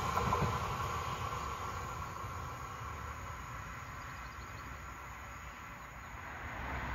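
Electric multiple-unit passenger train running away down the line, its rumble and rail noise fading steadily as it recedes.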